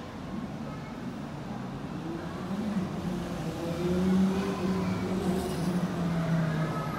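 A rubber-tyred Bombardier light rail vehicle running through the station with a motor whine. The whine builds to its loudest about four seconds in, then drops a little in pitch and eases off near the end.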